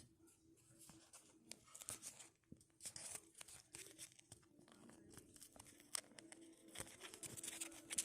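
Faint handling noise of small plastic toy parts and a sticker sheet: scattered light clicks and short rustles, like stickers being peeled off their backing.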